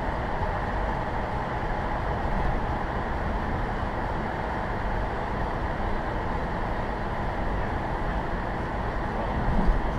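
Steady road noise of a car driving through a road tunnel, heard from inside the cabin: a low tyre and engine rumble, with a brief louder bump near the end.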